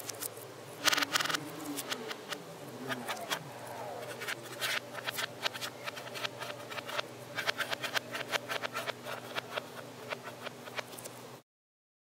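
Fat black paint marker scratching and squeaking across a smooth white wall in quick strokes as a graffiti tag is written, many short scratches over a steady low hum. The sound cuts off suddenly near the end.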